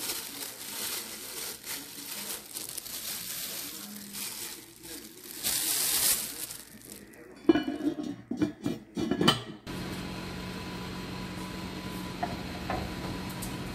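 Plastic food-prep gloves crinkle and rustle while raw pork ribs are handled and rolled inside a pot. About seven seconds in comes a run of loud, sharp clattering knocks from the enameled cast-iron Staub pot and its lid. A steady low hum follows.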